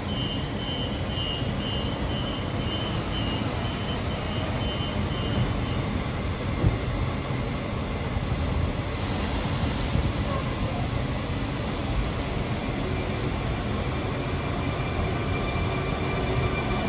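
Sydney Trains Millennium (M-set) double-deck electric train departing. Door warning beeps sound for the first six seconds, and a burst of air hiss comes about nine seconds in. The train then moves off with a rising rumble and the whine of its traction motors setting in.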